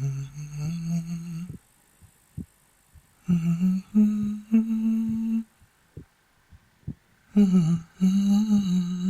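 A man humming a slow, low melody in held notes, in phrases broken by two pauses of about two seconds. Soft heartbeat thuds sound through the pauses.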